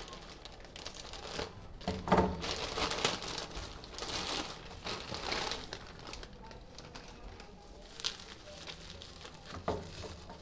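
Thin plastic mailer bag and bubble wrap crinkling and rustling in irregular bursts as the parcel is handled and opened, with a single knock about two seconds in.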